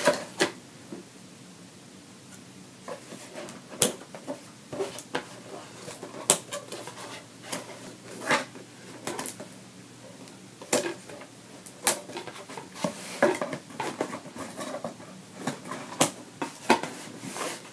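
Small scissors snipping and scraping at the seal of a cardboard box, with irregular sharp clicks and short scrapes as the box is handled.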